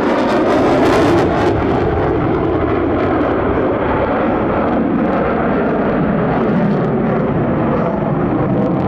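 Jet noise from an F-35A Lightning II in flight, its single Pratt & Whitney F135 afterburning turbofan heard as a loud, dense rumble. It is loudest in the first second or so, then holds steady with a slowly wavering tone.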